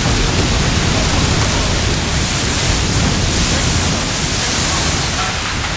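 Oil gusher spraying from a blown-out well: a loud, steady rushing noise like heavy rain pouring down.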